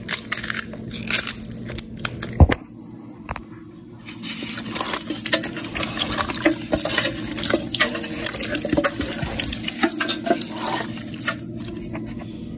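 Kitchen shears working through raw turkey wings, with clicking and a single loud snap about two and a half seconds in. Then wet squelching and clicking as seasoned raw wings are handled and turned in a metal pot, over a steady low hum.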